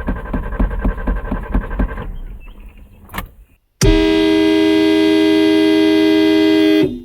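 Car engine cranking over without starting, pulsing at about four beats a second for roughly two seconds before it dies away. A click follows, then a long steady car-horn blast lasting about three seconds.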